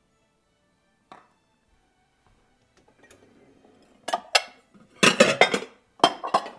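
A glass bowl and dishes being handled on a kitchen countertop: one light knock about a second in, then several quick clinks and clunks over the last two and a half seconds.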